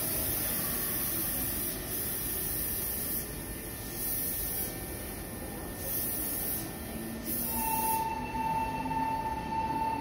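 Meitetsu 9500 series electric train standing at the platform: a steady hiss, then about three-quarters through a steady high-pitched tone with a lower tone under it begins and holds.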